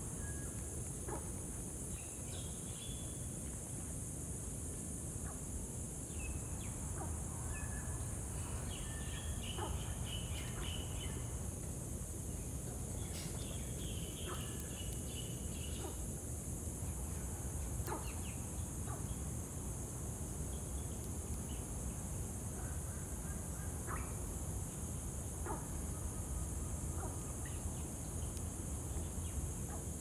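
Outdoor ambience: a steady high-pitched insect chorus, with scattered short bird chirps over a low rumble.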